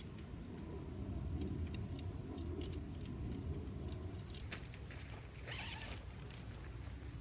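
Handling noises: scattered short clicks and rustles over a low rumble, with one short rasping pull, like a zipper, about five and a half seconds in.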